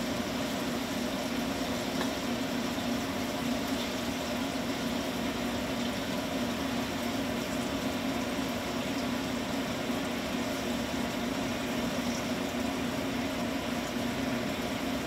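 A motorised stainless steel machine running with a steady, unbroken hum.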